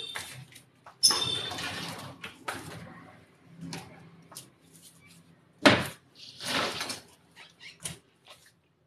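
A series of knocks, clicks and scrapes, with a scraping sound about a second in and a sharp, loud knock a little before six seconds.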